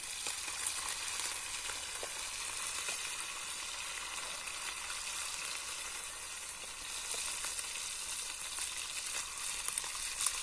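Fish frying in hot oil in a frying pan: a steady sizzle.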